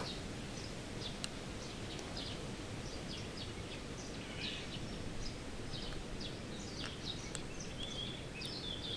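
Small birds chirping now and then over a steady low outdoor hum.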